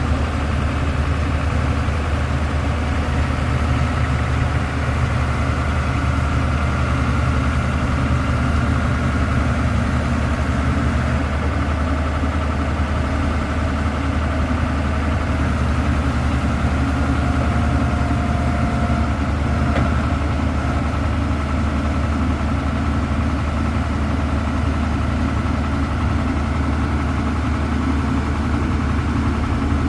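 Heavy vehicle engine idling steadily: a deep, even running note with no revving.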